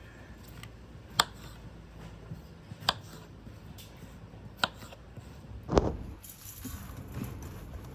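Knife cutting courgettes on a wooden cutting board: three sharp taps of the blade on the board, spaced a second and a half to two seconds apart, then a heavier thump near the end.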